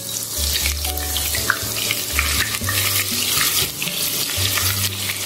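Sliced onions sizzling as they deep-fry in a pot of hot oil, with a spatula stirring them through the oil.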